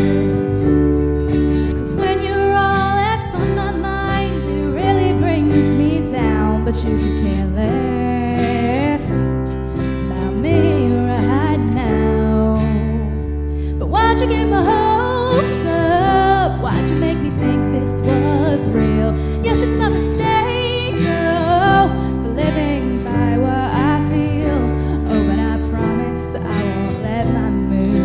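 A woman singing a song to strummed acoustic guitar.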